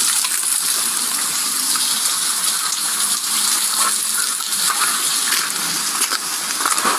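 Steady hiss of heavy rain, with a few faint taps.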